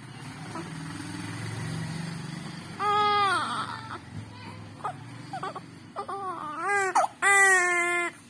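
A young child, sick with a cough and cold, crying fussily: a low whimpering start, then three wailing cries in the second half, the last one the longest, with short sobs between.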